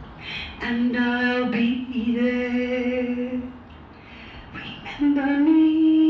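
A woman singing a slow ballad unaccompanied, holding long drawn-out notes. She breaks off briefly about four seconds in, then starts a new held note that steps up in pitch.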